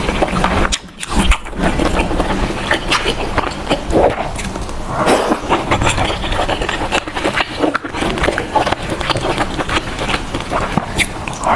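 Eating sounds: a person chewing and slurping food, with many short clicks and smacks.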